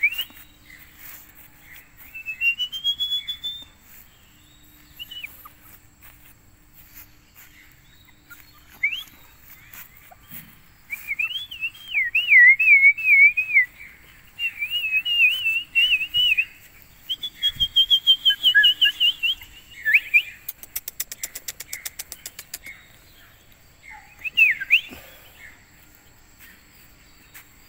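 A person whistling a string of high, warbling phrases with quick up-and-down trills and short gaps between them, a call coaxing young puppies to come and walk.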